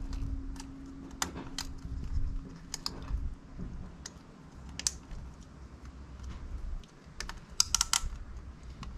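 Hands pushing a rubber hose onto its fitting and pressing it into a plastic clip: a scatter of light plastic clicks and rattles, with a quick run of sharper clicks near the end.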